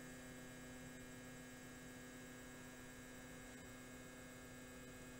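SHARK RS1000 Pro CNC router table's motorized fence driving slowly toward the bit during its automatic fence calibration. Its motor drive gives a faint, steady hum that holds one pitch.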